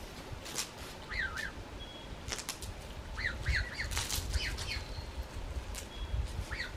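Female southern cassowary giving its deep bellowing call, low booming that builds from about two and a half seconds in; the call is typically given when another adult cassowary is near. A small bird sings short repeated chirping phrases over it, with a few sharp clicks.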